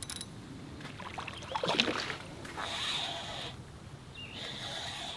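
Spinning reel cranked in two short spells while a hooked fish is brought in through the water, with water splashing; the loudest moment comes a little under two seconds in.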